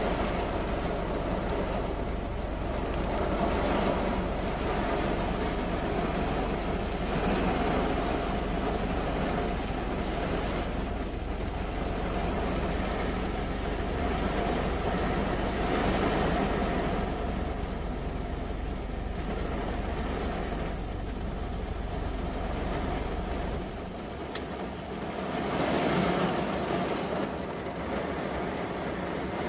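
Heavy rain on a car's windshield and roof, heard from inside the cabin, swelling and easing in slow waves. A low hum underneath stops about 24 seconds in, with a single sharp click just after.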